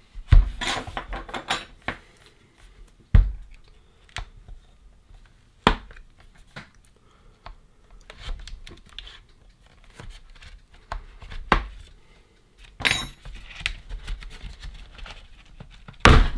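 Plastic housing of a JBL Xtreme 3 Bluetooth speaker being forced open by hand: irregular sharp clicks and snaps from the case clips as it is pried apart, with quieter handling knocks between them. The loudest snaps come about a third of a second in, around three and six seconds in, and again near the end.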